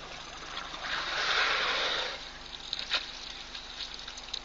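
African elephant emptying a trunkful of water into its mouth while drinking: a gush of water lasting about a second, followed by a few sharp ticks.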